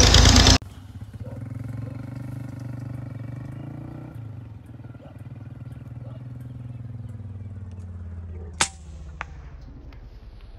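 Motorcycle engine idling steadily. About eight and a half seconds in comes a single sharp air rifle shot, with a fainter click about half a second after it.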